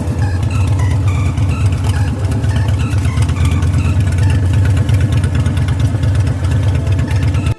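Motorcycle engine running loud with a deep, fast pulsing beat, cutting off suddenly at the end.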